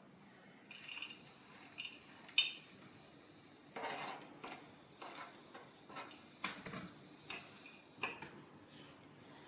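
Cutlery clinking and scraping against a plate: a dozen or so short, irregular clicks and scrapes, the sharpest about two and a half seconds in.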